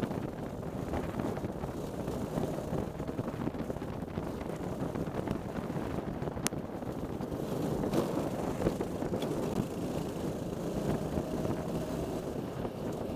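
Racing kart engine running hard at racing speed, heard through the kart's onboard camera with wind buffeting the microphone.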